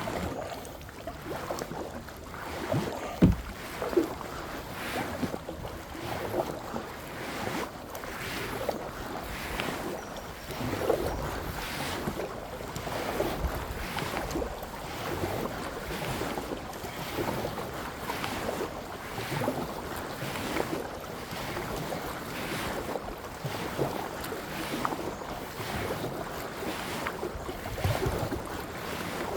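Kayak paddle strokes splashing in the water at a regular pace, with wind buffeting the microphone. Two sharp knocks stand out about three and four seconds in.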